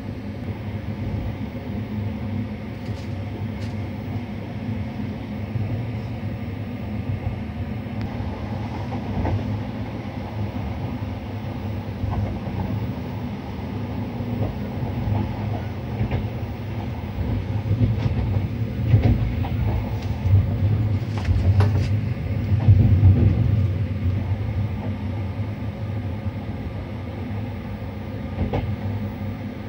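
Running noise of a VR Sr1 electric locomotive hauling an Intercity train, heard from the cab: a steady low hum with wheels rumbling on the rails. A few sharp clicks over rail joints or points come early and again a little past the middle, where the running gets louder for a few seconds.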